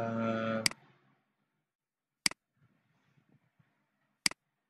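Computer mouse button clicks: three sharp single clicks about two seconds apart.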